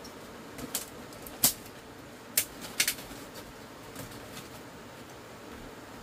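About five short, sharp knocks over a steady faint hiss, the loudest about one and a half seconds in, the last two close together near the three-second mark.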